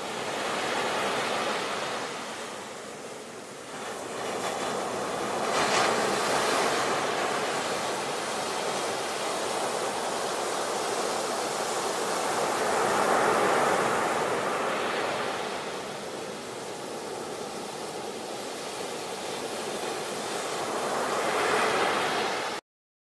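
Ocean surf: waves breaking and washing up a sandy beach, a steady hiss that swells and eases several times and then cuts off abruptly near the end.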